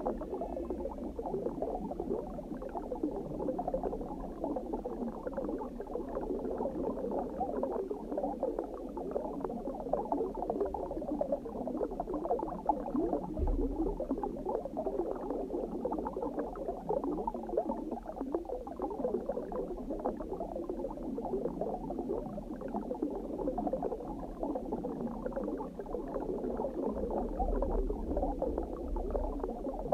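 Underwater water ambience: a continuous dense bubbling and gurgling, steady throughout.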